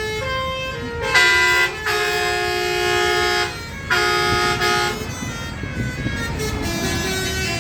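Indonesian bus 'telolet' horn: a multi-tone musical air horn sounding chords of held notes in several blasts, a short one about a second in, a long one around two seconds, another around four seconds, then quieter, shifting notes toward the end.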